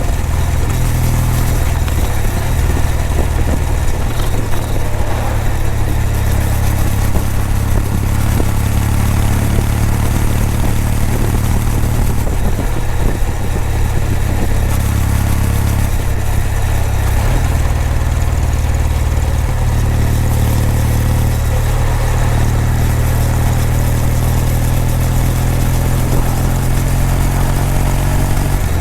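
Kawasaki W800's air-cooled parallel-twin engine and exhaust running steadily under way. The engine note shifts in pitch about halfway through and again a few seconds later.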